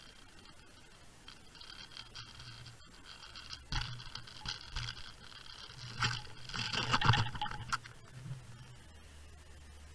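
Underwater microphone picking up a fishing rig and camera scraping and rattling over the sandy, shelly seabed, in several louder bursts around four, six and seven seconds in, with scattered clicks over a low steady hum.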